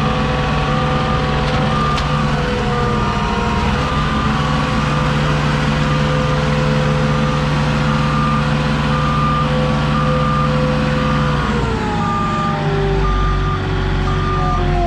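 Moffett truck-mounted forklift's engine running under way, with a backup alarm beeping about once a second over it. About twelve seconds in the engine drops in pitch as the machine slows on reaching the trailer.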